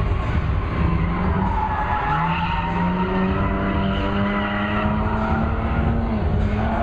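Car engine running hard and tyres skidding as the car drifts through a cone course. The engine note climbs about two seconds in, holds steady for a few seconds, dips briefly near the end and rises again.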